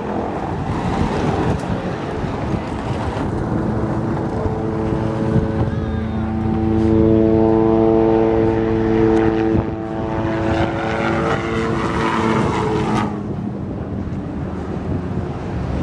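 Small light helicopter flying past: a steady engine and rotor tone builds, is loudest about halfway through, then fades, over a constant rumble and hiss.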